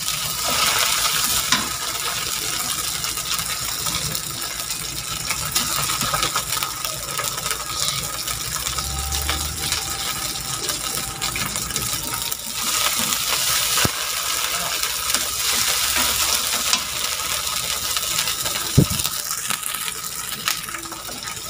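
Onions, peppers and tomato paste sizzling as they sauté in a granite-coated wok, with a wooden spatula stirring and scraping against the pan and tapping it now and then. The frying is a steady, noisy hiss.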